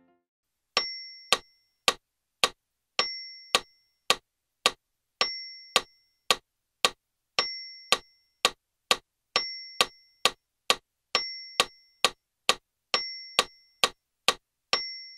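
Built-in metronome of a Roland FP-series digital piano clicking in four, with each first beat accented by a higher bell-like ding. The tempo changes partway through as it is adjusted, the clicks coming faster past the middle.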